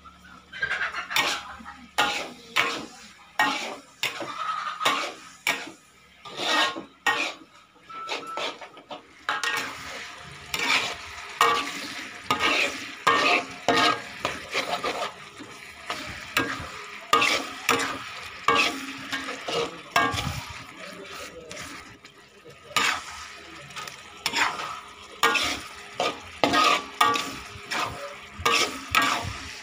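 Metal spatula scraping and knocking against a wok as chopped chilies and tomatoes are stir-fried, with strokes about once a second. Under it, a steady sizzle of frying that grows thicker about nine seconds in.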